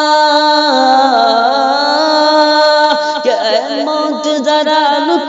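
Male voice singing an Urdu naat, drawing out long held notes. The pitch steps down about a second in, and a slow, wavering ornamented run follows around three seconds in.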